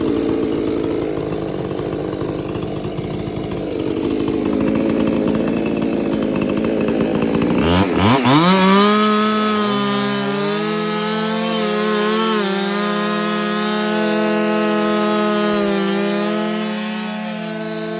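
Chainsaw cutting through wood under load with a rough, labouring sound. About eight seconds in, the engine revs sharply up to full speed and holds a steady high whine, with small dips in pitch.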